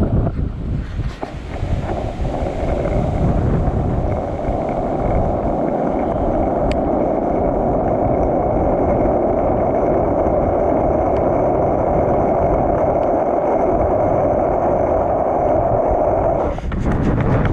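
Skateboard wheels rolling fast on asphalt down a steep hill: a steady rumble that builds over the first couple of seconds as the board picks up speed, mixed with wind on the microphone. The rolling stops suddenly near the end.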